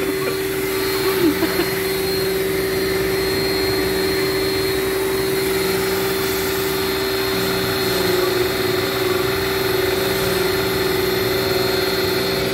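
Corded handheld electric power tool running steadily with a constant motor whine, wavering slightly about eight seconds in.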